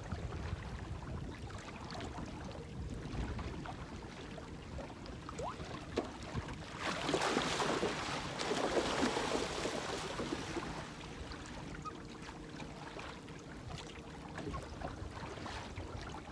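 Wind rumbling on the microphone in an open fishing boat, with a faint steady whine underneath. A louder rush of noise swells for about three seconds in the middle.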